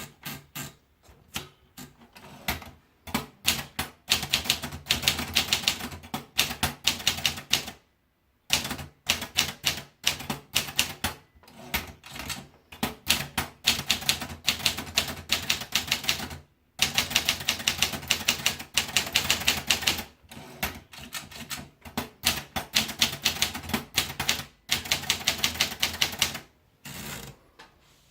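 Vendex 1650 TR typewriter typing: rapid, even runs of type strikes, about ten a second, in bursts of a few seconds with short pauses between lines.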